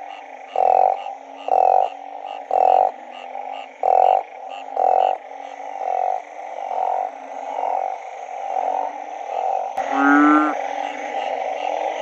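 Frogs calling in a flooded puddle after rain: one loud, low call repeated about once a second, fading after about five seconds into a steady chorus of other frogs. Near the end there is a sharp click, then a short call that rises in pitch.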